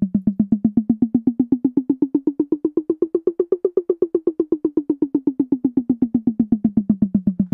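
A short pitched drum sample retriggered in a rapid, even stream, about nine hits a second, while a drawn pitch envelope glides it slowly up to a peak midway and back down. A pan envelope swings it across the stereo field, ending with a quick move left.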